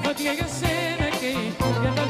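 A woman sings into a microphone with a live band behind her. Her voice wavers in a wide vibrato over a steady beat and bass line.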